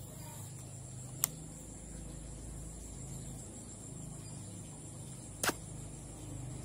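Sharp clicks from a baitcasting reel as it is worked for a cast: a single click about a second in and a quick double click near the end. Under them runs a steady high insect drone and a low hum.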